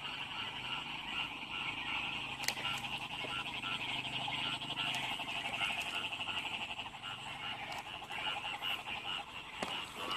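A dense chorus of field frogs calling in wet rice fields after heavy rain: a steady high trilling mass, with one call repeating about three times a second over it. A few sharp clicks stand out.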